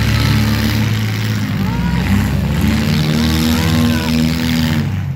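Several demolition derby cars' engines revving and running hard, rising and falling in pitch, over loud crowd noise with scattered shouts.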